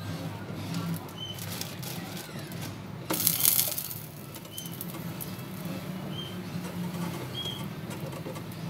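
Slice of bread laid into a frying pan of hot oil, setting off a short loud sizzle about three seconds in, with light clicks of a fork on the pan. Brief high chirps recur every second or two over a low steady hum.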